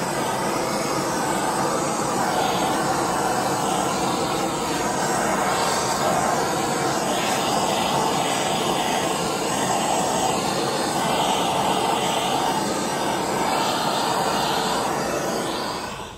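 Handheld gas torch burning with a steady hiss as its flame is played back and forth over metal bottle caps.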